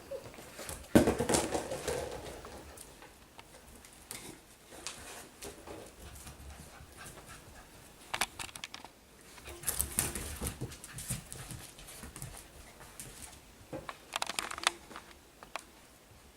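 Cockapoo puppies playing, with panting and a scatter of short scuffling clicks and small noises that come in clusters.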